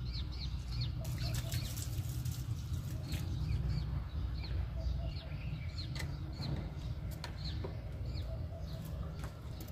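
Small birds chirping repeatedly in short, high notes over a steady low rumble.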